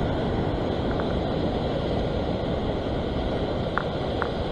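Wind buffeting the microphone over ocean surf breaking and washing on the rocks: a steady, rumbling rush with a few faint short ticks.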